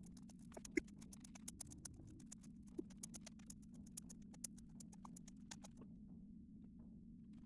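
Dry pinto beans clicking and rattling faintly as they are handled and counted, with irregular small ticks several times a second that pause shortly before the end, over a steady low hum.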